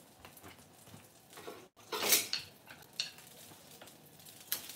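Kitchen cookware and utensils being handled: several short clatters and scrapes, the loudest about two seconds in.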